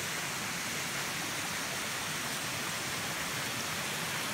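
Steady rush of a waterfall and of the creek below it running between boulders, an even, unbroken hiss of falling water.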